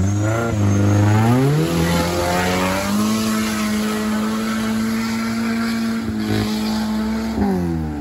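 Off-road vehicle's engine revved up hard and held at high revs for several seconds, then dropping back near the end.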